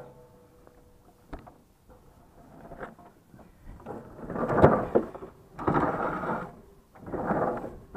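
A refrigerator being tipped and shifted by hand: quiet at first, then scraping and rattling with a sharp knock a little past halfway, followed by two shorter stretches of scraping.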